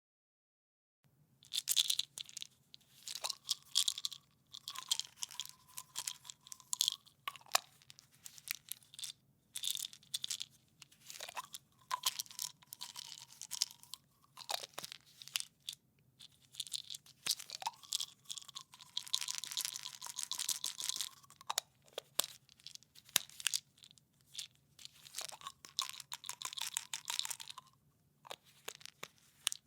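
Plastic pill or vitamin container being handled, the pills inside rattling and clicking in bursts with short pauses between. A steady thin tone comes and goes several times among the rattles.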